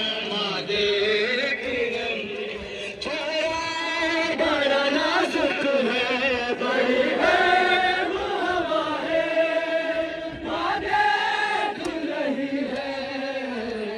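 A male voice chants a noha, a Muharram mourning lament, in long melodic phrases, amplified through a portable loudspeaker.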